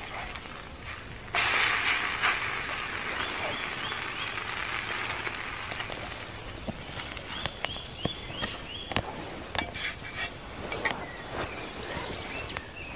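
Food frying in a steel pan over a small wood-burning stove: a steady sizzle that jumps suddenly to a loud hiss about a second and a half in, then slowly dies down. Sharp clicks of a wooden spoon on the pan and fire crackles run through it, with a few short high chirps.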